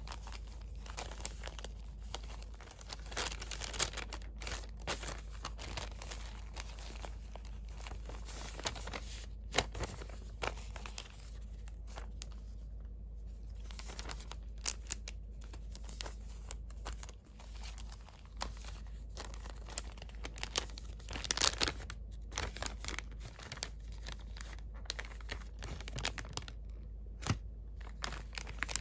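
Thin paper and clear cellophane bags being handled: continuous crinkling and rustling with many short, sharp crackles. There is a louder flurry of crinkling about two-thirds of the way in.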